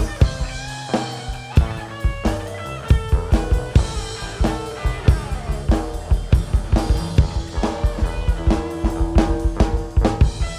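Live rock band playing an instrumental passage: a drum kit keeps a busy beat of kick and snare hits under bass and guitar or keyboard lines.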